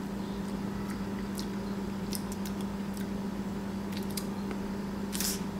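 Tasting a sip of water: small wet mouth clicks and lip smacks, with a short breath about five seconds in, over a steady low hum.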